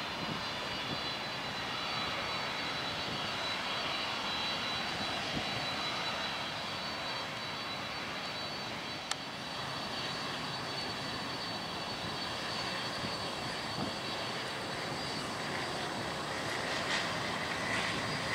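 Twin turbofan engines of a UPS Boeing 767-300ER freighter running as it moves along the airfield: a steady jet rumble with a thin high whine, growing a little louder near the end.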